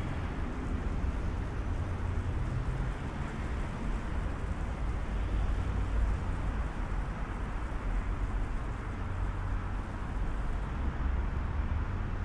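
Steady outdoor city-street ambience: a continuous low rumble with a hiss above it, the kind of noise given off by road traffic.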